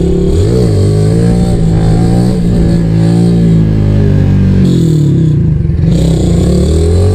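Single-cylinder 150 cc fuel-injected motorcycle with a gutted, de-baffled exhaust, accelerating hard. The loud exhaust note climbs in pitch, rises and falls with the throttle, dips about four and a half seconds in, then climbs again.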